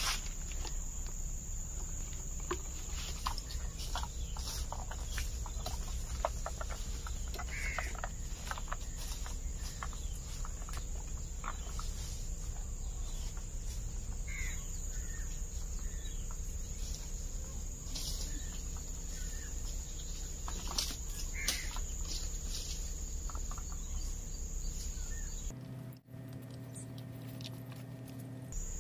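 Birds calling now and then over a steady high insect drone and a low rumble. In the last few seconds the background changes to a low steady hum.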